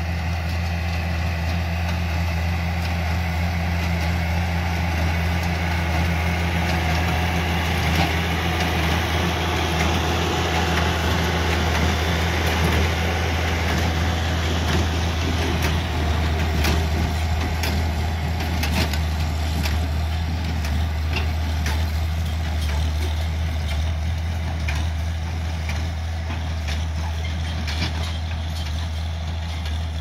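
International Harvester tractor engine running steadily while pulling a working square hay baler. From about halfway through, as the baler comes close, its mechanical clatter of sharp knocks and clicks is heard over the engine.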